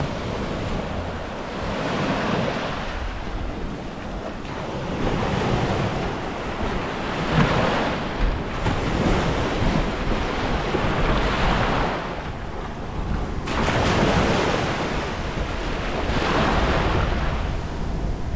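Small shore break in shallow surf, waves breaking and washing up the sand, swelling and fading every few seconds.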